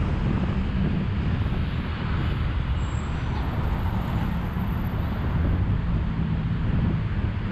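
Steady low rumble of road traffic mixed with wind buffeting the microphone.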